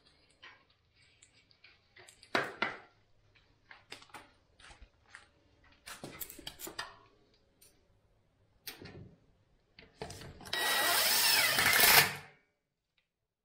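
Scattered knocks and clicks of handling, then a power drill runs for about two seconds near the end.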